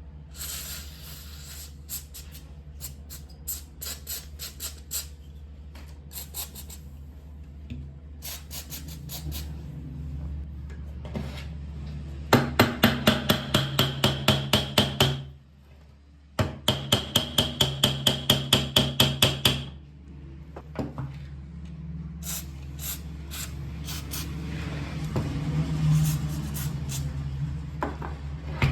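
Hand work on metal parts: scattered taps and scraping, then two runs of steady hammer blows, about four a second, each with a ringing tone, over a low steady hum.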